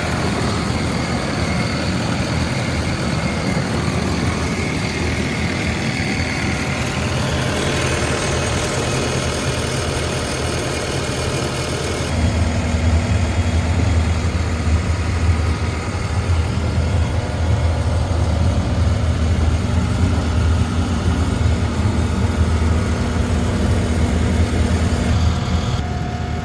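Takeuchi TL12-V2 track loader's diesel engine running steadily. About twelve seconds in, the sound changes and becomes louder and deeper.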